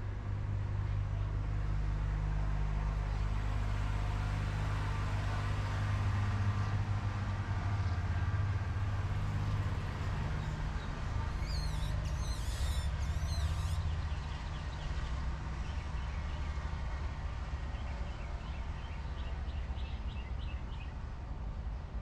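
A low, steady motor hum that fades about two-thirds of the way through. High bird chirps come in a short flurry about halfway, and faint chirping follows near the end.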